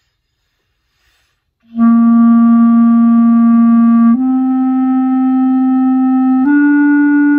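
Clarinet playing a slurred long-tone exercise. After nearly two seconds of silence come three held notes, C, D then E, each about two seconds long and each a step higher, joined without tonguing.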